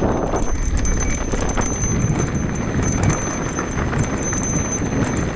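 Mountain bike rolling over a rough dirt trail, with rumbling tyre and ground noise and many small rattles and clicks from the bike.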